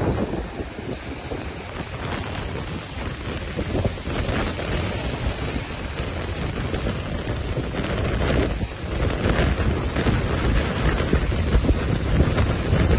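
Strong gusty wind buffeting the microphone, a loud low rumble that swells and eases, with surf breaking behind it.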